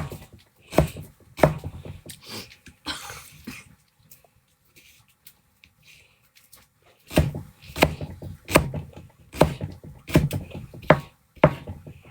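Kitchen knife chopping scallions on a cutting board: a few chops at first, a pause of about three seconds, then a run of about seven evenly spaced chops, roughly one and a half a second.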